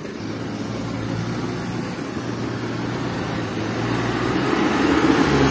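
Engine of a small dump truck loaded with soil, running steadily under load and growing gradually louder.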